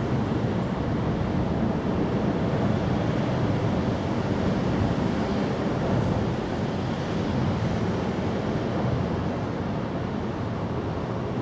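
Steady outdoor background noise: an even, low rushing rumble with no distinct events.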